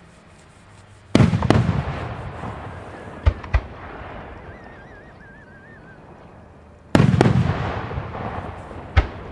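Aerial fireworks shells bursting. A loud boom about a second in rumbles and crackles away, followed by two sharp reports close together a couple of seconds later. Another loud boom comes about seven seconds in, and one more sharp report near the end.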